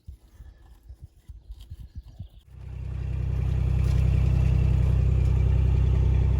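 A few faint, irregular knocks, then about two and a half seconds in a vehicle engine's low hum swells up and runs steadily, easing off near the end.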